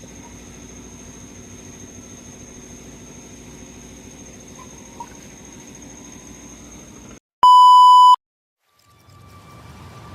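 Steady low workshop hum with a faint high-pitched whine, cut off abruptly about seven seconds in; then a single loud, steady electronic beep lasting under a second, followed by a brief silence and faint music fading in near the end.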